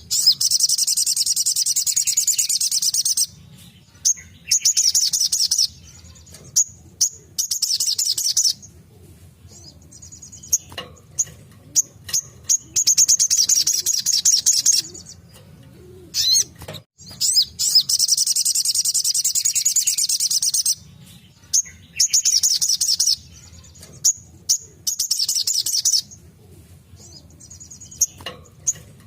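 Little spiderhunter (sogok ontong) singing its rapid-fire 'tembakan' phrases: loud, very fast high-pitched trills lasting one to four seconds each, repeated again and again with short pauses between them, over a faint low hum.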